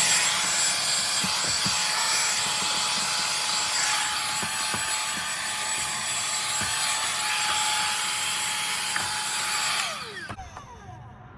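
Vacuum cleaner running, a steady motor whine over rushing air, then switched off about ten seconds in, its whine falling as the motor spins down.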